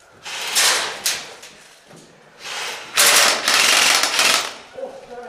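Airsoft gun firing in rapid full-auto bursts, several in a row, the longest about a second and a half in the middle.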